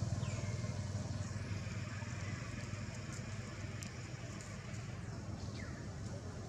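Low rumble of a passing motor vehicle's engine, fading slowly away. A couple of short high chirps fall in pitch, one near the start and one about five and a half seconds in.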